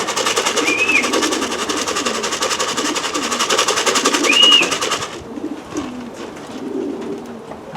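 Racing pigeons cooing, over a fast, even clattering that stops suddenly about five seconds in. Two short rising-and-falling chirps sound during the clattering.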